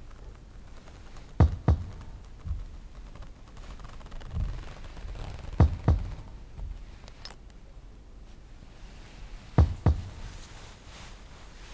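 Pairs of short, low thuds, the two beats of each pair about a third of a second apart, repeating three times at intervals of about four seconds, with softer thumps in between.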